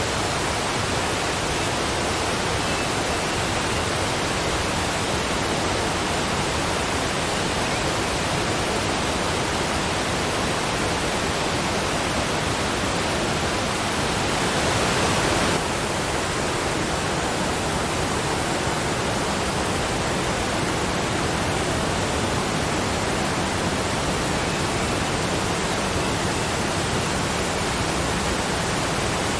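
Waterfall: a steady rush of falling water, swelling a little louder for a second or so about halfway through.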